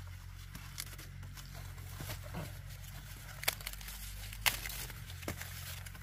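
Ears of corn being handled and put into a woven bamboo basket: scattered sharp snaps and knocks, with dry corn leaves and husks crinkling, over a low steady rumble. The two loudest snaps come about three and a half and four and a half seconds in.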